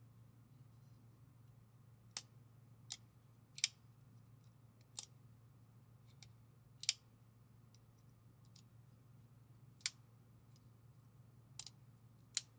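About ten sharp metallic clicks at irregular intervals, some in quick pairs, from a Hogue Deka folding knife's crossbar lock and blade as the knife is worked open and shut in the hand.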